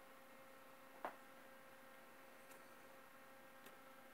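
Near silence: a faint steady electrical hum, with one light click about a second in.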